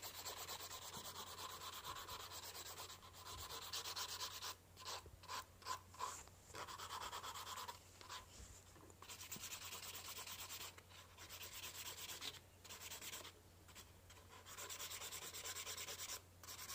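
A hand nail file rubbing back and forth over acrylic nails on a practice hand in quick, even strokes, stopping briefly several times.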